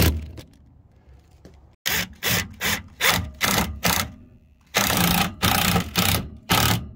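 A run of short scraping strokes, about three a second, with a brief pause halfway through.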